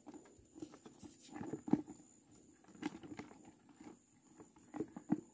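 Irregular soft knocks and rustles of close handling as a spinning rod and reel is picked up and readied, with a few louder thumps about one and a half seconds in and near the end.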